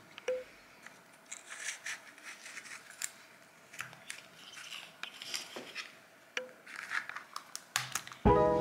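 Small clear plastic slime pots and their lids being handled on a table: scattered light clicks, taps and scrapes. Music with plucked notes comes in near the end.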